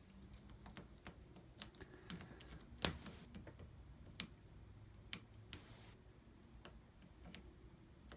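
Lock pick raking and lifting the pins of a Medeco Keymark SFIC core under tension: faint, irregular metal clicks and ticks, with one sharper click about three seconds in. The core is sitting in a false set.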